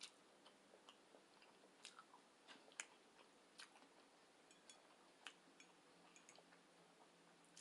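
Faint chewing of teriyaki tofu and vegetables: scattered soft mouth clicks and smacks, a few every second, over near-silent room tone.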